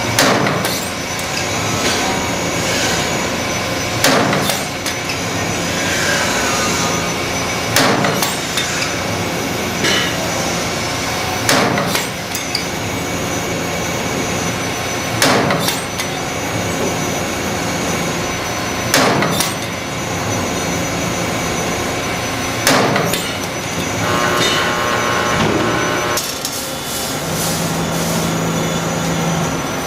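EC-100 CNC spring making machine running through its cycle: a steady mechanical whir with a sharp metallic clack about every four seconds and lighter clicks between.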